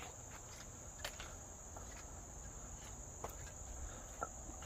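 Insects chirping in a steady high-pitched chorus, with a few faint clicks.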